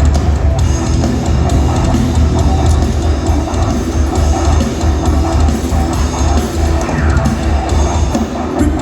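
Live rock band playing an instrumental passage: a drum kit pounding under guitar, loud and continuous with no vocals.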